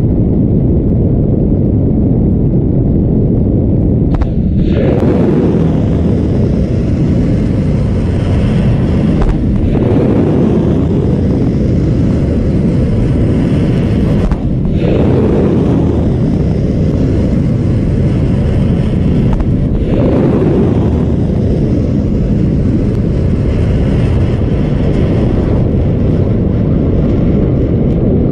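Missiles launching in succession from a warship's deck, a loud continuous rumble with rushing wind and water from the ship under way. Fresh surges come about every five seconds, near 4, 10, 15 and 20 seconds in.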